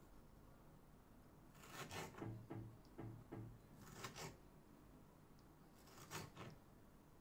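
Knife chopping cherry tomatoes on a plastic cutting board: faint cuts and taps of the blade on the board, in short bunches about two, three, four and six seconds in.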